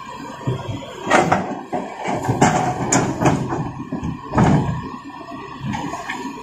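Hitachi 200-class hydraulic excavator digging, its bucket scraping and knocking against soil, stones and roots in several sudden strikes, with the engine running steadily underneath.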